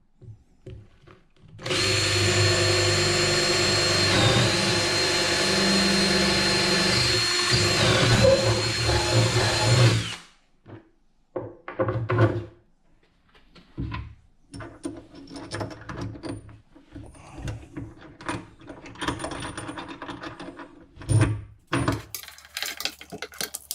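Power drill running for about eight seconds as it bores holes through plywood for the grinder's mounting bolts, its whine dipping briefly twice as the bit bites. Knocks and clatter follow, then a quieter stretch of drilling and handling.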